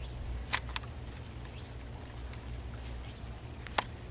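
Light rain falling, a faint even patter over a low steady rumble, with a few sharp ticks; the loudest tick comes near the end.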